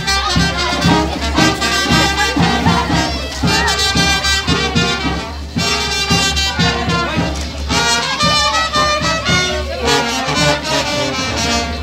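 Brass-band music with a steady beat and held horn notes.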